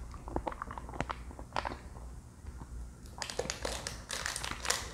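Crinkling of a small candy wrapper handled and worked open by hand: scattered crackles, with a denser run about three seconds in.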